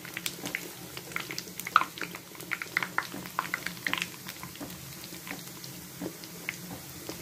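Hot oil bubbling and crackling around a bhatura deep-frying in a kadhai as it is pressed down with a slotted spoon, with irregular sharp pops that are busiest in the first few seconds and thin out toward the end.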